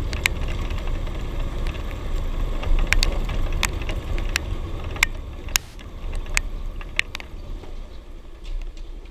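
Suzuki GD 110 motorcycle on the move: a low, steady rumble of engine and wind, with sharp clicks scattered through it. The rumble eases a little after about five and a half seconds.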